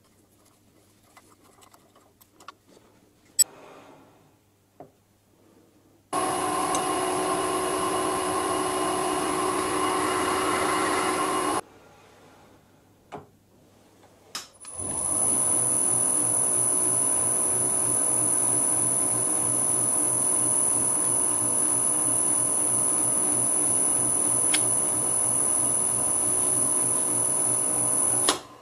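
Vintage Karger metal lathe running: a steady hum with several fixed whining tones from the motor and spindle drive. It runs twice, first for about five seconds from six seconds in, then again from about fifteen seconds in, coming up to speed and holding steady until it stops abruptly near the end. Before the first run, light clicks and one sharp tick of a hex key working a set screw.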